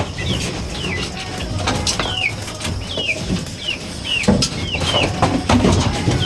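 Young chickens peeping over and over, short high calls that each slide downward, about two a second, with a few knocks and rustles of handling among them.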